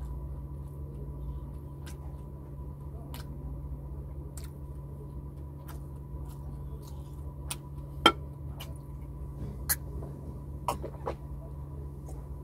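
Eating sounds at a table: scattered sharp clicks and taps of dishes and a drinking glass, the loudest about 8 and 10 seconds in, over a steady low hum.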